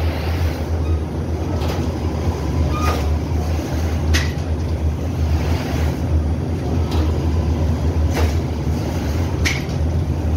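Automatic flatbread oven machinery running with a steady low rumble and hum, and a short sharp metallic click about every second and a quarter.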